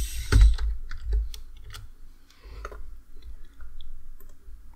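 Scattered clicks of a computer mouse and keyboard, over a low rumble.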